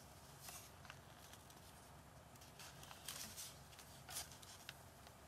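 Faint rustling and crinkling of paper handled at a table, in a few short scattered bursts over a low room hum.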